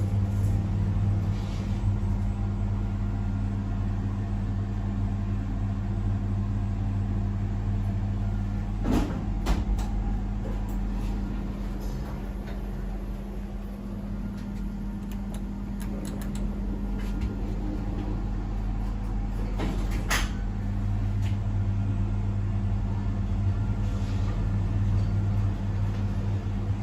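Steady low electrical hum of a lift and its machinery, a little quieter in the middle, with two sharp clicks, one about nine seconds in and one about twenty seconds in.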